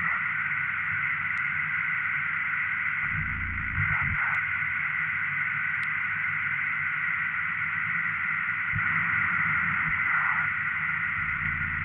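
Circuit-bent office telephone putting out a steady, static-like electronic drone: a high hiss over a low buzz, wavering briefly about four seconds in and again near ten seconds.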